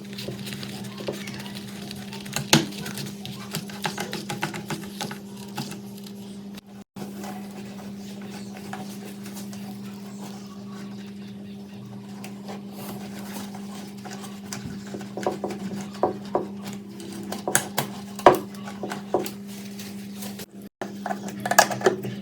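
Metal parts clinking, tapping and knocking as they are handled and worked on, over a steady low hum. The knocks come more often in the second half.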